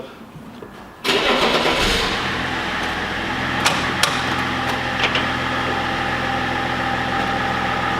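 BMW M52 2.8-litre straight-six engine starting: it catches suddenly about a second in, then settles into a steady idle, with a few sharp clicks over it.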